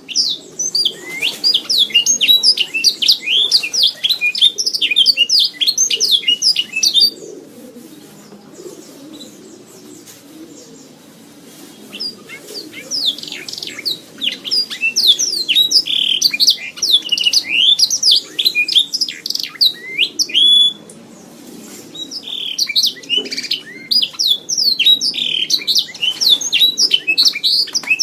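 Domestic canary singing: fast, rolling runs of short high chirps and trills in three long bouts, with pauses of a few seconds between them.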